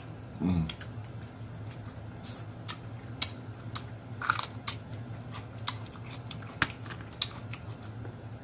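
Close-up eating sounds: blue crab shell being picked apart by hand with scattered sharp cracks and clicks, along with chewing and mouth sounds, and a crunchier bite about four seconds in.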